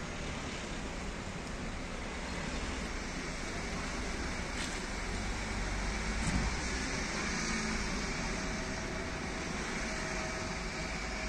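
Cars and a light van driving across a railway level crossing, a steady road-traffic rumble with one short thump about six seconds in.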